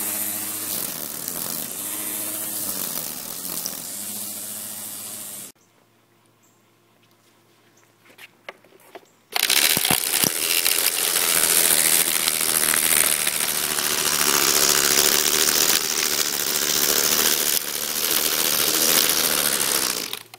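Ryobi 24V cordless string trimmer running, its electric motor whine wavering in pitch as the line cuts grass. It stops about five seconds in, leaving a few seconds of quiet with a couple of clicks. Then it runs again, louder and harsher, edging grass along a concrete curb.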